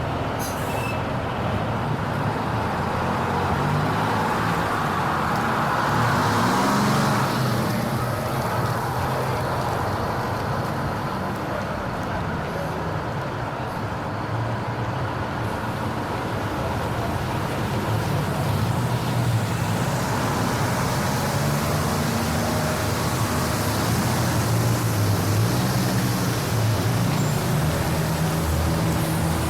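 Motor vehicle traffic: engines running with a continuous rumble of road noise, the engine pitch shifting as vehicles pass.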